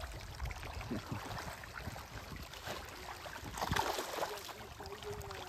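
Water splashing and gurgling at the surface of a fish pond, in an uneven patter with a louder cluster of splashes about three and a half seconds in.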